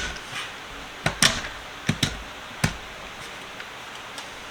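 Chrome sockets clicking and clinking as they are pushed onto a socket clip: about five sharp clicks in the first three seconds, then a couple of fainter ticks.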